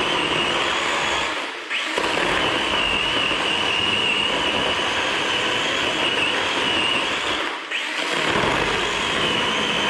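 Craftsman battery-powered electric chainsaw cutting a block of seasoned sugar maple down into fine chips and sawdust, its motor whining steadily. Twice, about two seconds in and again near eight seconds, the whine drops away briefly and then spins straight back up.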